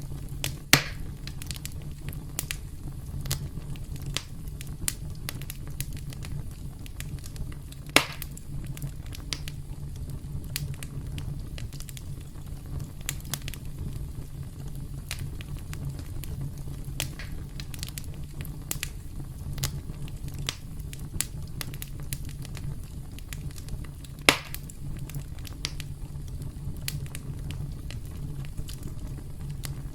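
Campfire crackling: a steady low rumble of burning wood under many small crackles, with three loud sharp pops: the first about a second in, one about eight seconds in, and one past the twenty-four second mark.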